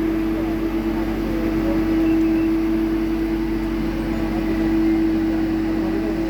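A machine's motor running at a steady speed, with a loud, even hum.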